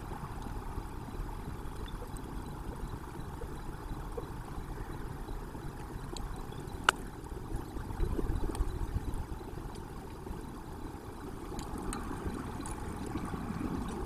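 Steady low rumbling background noise, with a single sharp click about seven seconds in.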